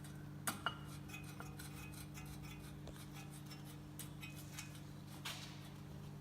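Light metallic clinks and taps of tools and parts handled during hub bearing installation, with two sharp clicks about half a second in, over a steady low hum.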